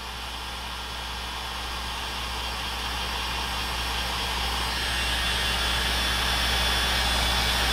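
Electric heat gun running steadily, blowing hot air onto a solder sleeve to shrink its tubing and melt the solder band over a shielded cable's drain. The rushing air grows slightly louder, and a faint whistling tone joins about halfway through.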